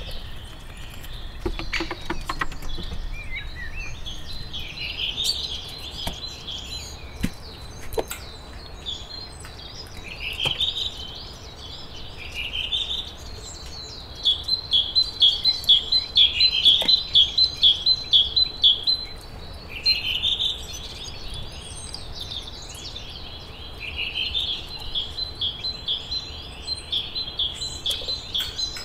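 Small songbirds singing in the forest: repeated short phrases, several ending in a fast run of high notes, loudest around the middle. A burst of sharp clicks about two seconds in.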